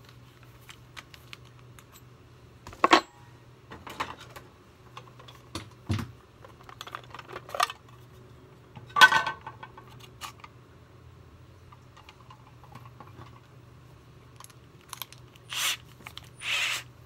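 Clicks, taps and clatter of metal drill bits and a drill being handled, with a few sharper knocks and two short noisy bursts near the end, over a low steady hum.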